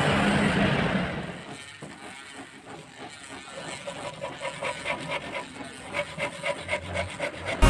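Mini rotary tool (Dremel-type) grinding against wood with a dense, rough noise that dies away about a second in. It is followed by a quieter stretch and then a run of regular ticks with ringing tones that grow louder towards the end.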